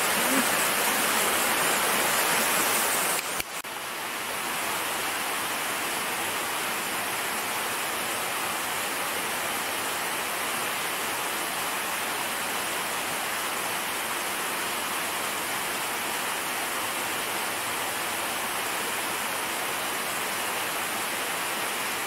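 Rushing water, a steady even rush of a waterfall or fast stream; it drops a little in level about three seconds in, then holds steady.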